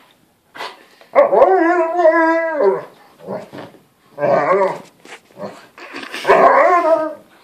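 Alaskan malamute vocalizing in drawn-out, howl-like calls: one long call about a second in that drops in pitch at its end, then a few shorter ones.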